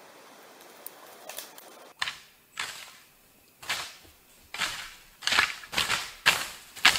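Footsteps crunching and rustling through ferns and undergrowth on an overgrown portage trail, starting about two seconds in and coming quicker and louder toward the end. Before them there is a faint steady hiss.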